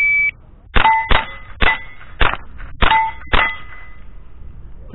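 Electronic shot-timer start beep, then six quick shots from a Thompson Center .22 rimfire rifle, about half a second apart, each with a steel target plate ringing after it. The last shot ends the string at a time of 3.56 seconds.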